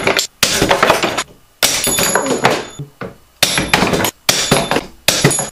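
Glued wood test joints giving way under load in a lever jig, a series of about five sharp cracks and wooden clatters as the lever arm and broken pieces drop, each dying away within a second.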